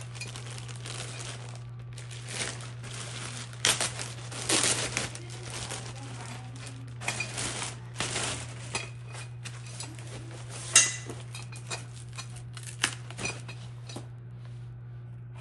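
Packaging crinkling and rustling in bursts as a softbox is unpacked by hand, with scattered handling clicks and knocks. A single sharp click about eleven seconds in is the loudest. A steady low hum runs underneath.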